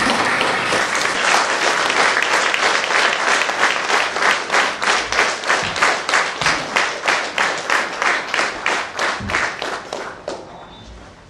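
Audience applauding. The dense clapping settles into a steady rhythm of about three claps a second, then dies away about ten seconds in.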